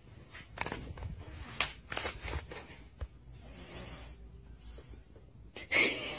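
A baby dozing off, heard as faint, uneven breathing and small rustles, with a short, louder snore-like sound near the end.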